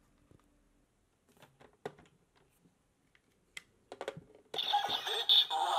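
Small plastic clicks and taps as a Progrise Key is handled against a DX Zero-One Driver toy belt; about four and a half seconds in, the belt suddenly starts playing its loud electronic sound effect through its small speaker, with music and a synthesized voice.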